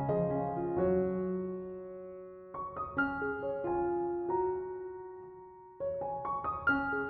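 Background piano music: unhurried groups of notes that ring on and slowly fade, with new phrases starting about a second in, near three seconds and again near six seconds.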